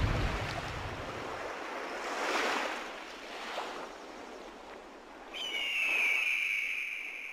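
Water rushing and surging in waves as a sound effect, swelling twice and fading. A high whistling tone comes in suddenly about five seconds in and glides slightly down.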